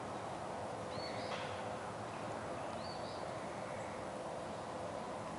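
Steady outdoor background noise with a faint steady hum, and two short high bird chirps, about a second and about three seconds in.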